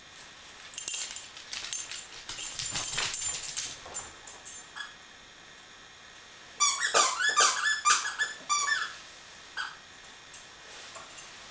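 Plush frog squeaky toy squeaked over and over as a dog plays with it: a stretch of short squeaks, a pause of about two seconds, then a fast run of sharp squeaks about seven seconds in, with a few stray squeaks after.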